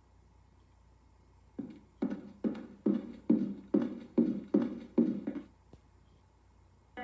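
A run of about nine short, sharp struck sounds, roughly two and a half a second, each dying away quickly; they start a moment in and stop a little before the end.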